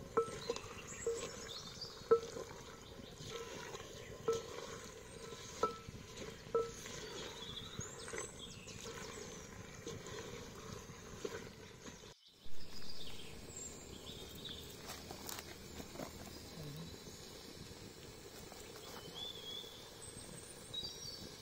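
Wooden spoon stirring and scraping thick chicken curry in a clay pot over a wood fire, with knocks about once a second in the first half. Birds chirp now and then.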